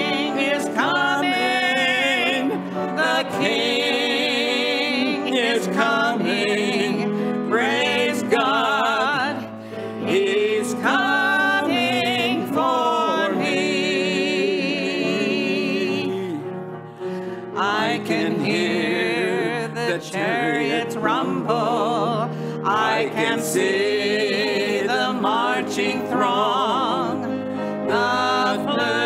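Gospel song sung by a woman and a man with strong vibrato over instrumental accompaniment, with short breaks between phrases.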